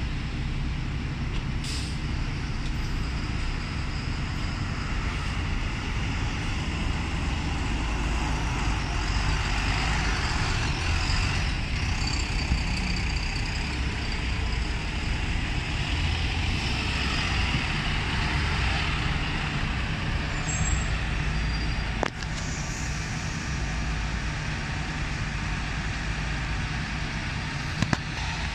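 Diesel engine of a three-axle double-decker bus pulling away from its stand and driving off, a steady low rumble. A sharp click comes about 22 seconds in, and two quick clicks near the end.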